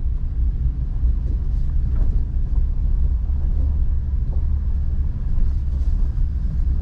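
Steady low rumble of a motor vehicle driving, heard from inside the cabin.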